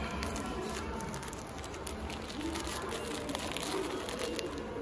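Background hubbub of distant voices, with a few faint crinkles from a plastic-wrapped pack of face masks being handled.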